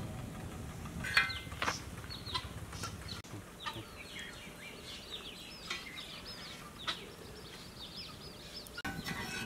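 Chickens clucking in a run of short calls, with two sharp metal clinks of a spatula against a steel plate about a second in.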